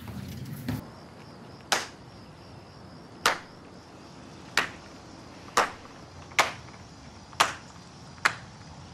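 A single person's slow clap: seven loud, separate hand claps that start about a second and a half apart and come gradually closer together.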